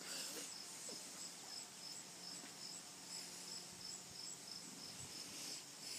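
Faint, even chirping of a cricket, a short high chirp about three times a second, over a faint steady low hum.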